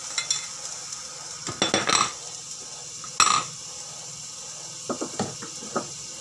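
Hot oil sizzling in a frying pan as chopped ingredients go in, with clatter of a bowl and a spatula against the pan: a run of clinks about one and a half seconds in, one loud clank near the middle and a few lighter knocks near the end.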